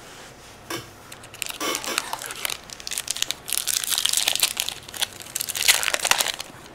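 Foil wrapper of a Pokémon trading card booster pack crinkling and tearing as it is pulled open by hand, the crackle starting about two and a half seconds in and running until near the end.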